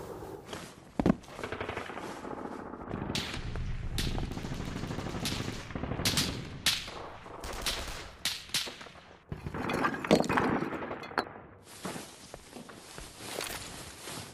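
Battle sound effects of gunfire: sporadic rifle shots and short machine-gun bursts, irregularly spaced and some louder than others.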